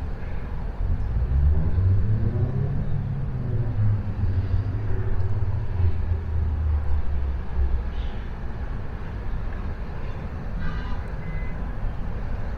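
A motor vehicle's engine rumbling low, its pitch rising over the first few seconds as it speeds up, then fading after about seven seconds.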